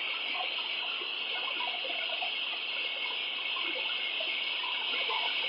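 Steady rushing road and wind noise heard from inside a moving car's cabin.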